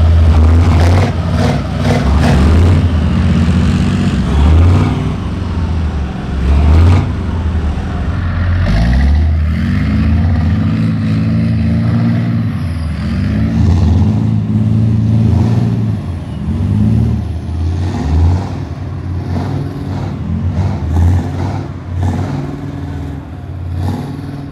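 Big diesel engines of tracked armoured vehicles on Leopard tank hulls, running and being revved again and again. The engine pitch rises and falls many times, with a clear run-up about eight to nine seconds in.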